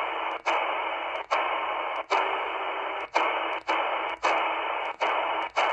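Shortwave static from an XHDATA D-808 receiver's speaker in upper sideband, heard as hiss with no clear signal. About every half second to second the hiss drops out briefly with a click as the receiver is stepped up a frequency step.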